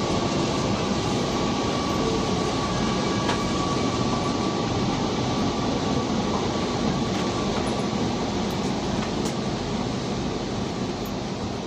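Kochi Metro train heard from inside a passenger car: the steady rumble and hiss of the running train, with a thin high whine that fades out about halfway through. The overall sound eases off slightly near the end.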